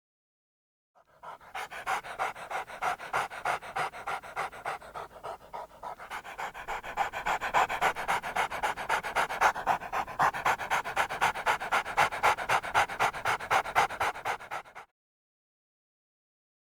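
Dog panting rapidly in quick, even breaths, about four a second. It gets louder about six seconds in and cuts off suddenly near the end.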